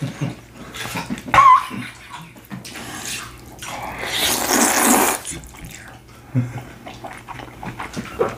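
A person slurping up a forkful of spicy noodles in one long, loud slurp about four seconds in, with small wet mouth and chewing noises around it.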